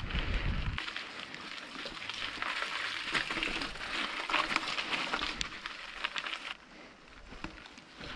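Mountain bike rolling over a loose gravel and rock trail: tyre crunch with rattling clicks, and a brief wind rumble at the start. It goes quieter about two-thirds of the way in as the tyres run onto soft grass.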